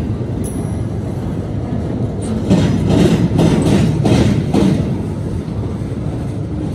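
Wheels of loaded continuous-welded-rail flatcars rolling past with a steady rumble, clattering in clusters as each set of wheels crosses a railroad diamond.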